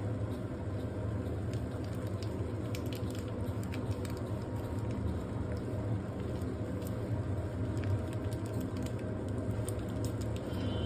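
Instant noodles crackling faintly in a hot nonstick pan as sauce is squeezed onto them: scattered small ticks over a steady low hum.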